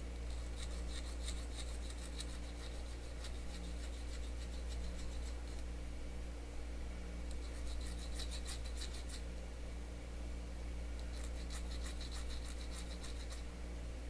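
Small needle file scraping along the edge of a metal can-lid ring, smoothing the cut edge, in three runs of quick, light strokes with short pauses between.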